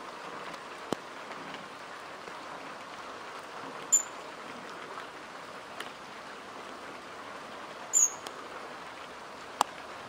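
Steady rain falling on a grapevine's leaves, an even patter with scattered louder drops. Two short, sharp high-pitched sounds stand out, about four seconds apart.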